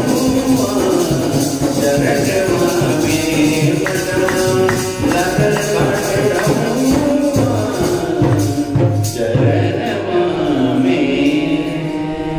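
Hindu devotional song (bhajan) to the goddess: a voice singing over music with percussion.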